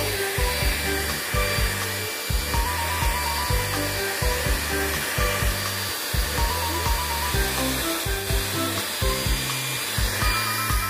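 Background music with a steady beat and bass line, over the steady rush of a handheld hair dryer blowing on a wet dog's coat.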